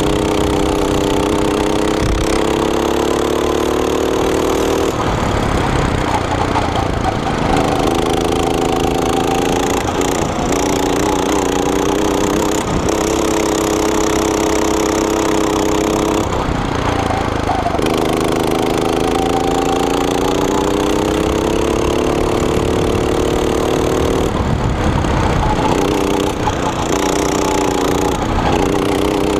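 Go-kart's small single-cylinder engine heard from the driver's seat, its pitch climbing in long pulls on the straights and dropping away each time the throttle is lifted for a corner, several times over. Wind rush and track rumble run underneath.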